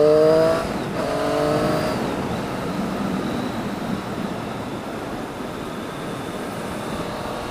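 Motorcycle engine accelerating away, its pitch climbing, dropping at a gear change about half a second in and climbing again, then settling into steady riding noise of engine and wind.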